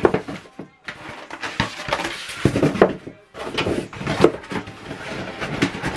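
Packaging being handled: irregular rustling and scraping with scattered small knocks as an item is taken out of its box.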